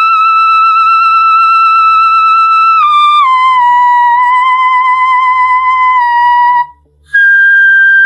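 Woman singing a wordless vocalise in the whistle register: a very high, pure note held for about three seconds, stepping down to a slightly lower note held several more seconds, then after a brief break a higher note begins near the end.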